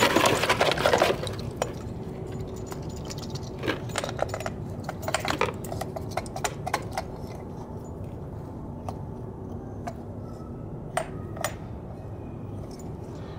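Starter motor parts being scrubbed with a paintbrush in a plastic tub of solvent: brushing and sloshing liquid for about the first second, then scattered light clinks of the metal parts as they are handled and rinsed.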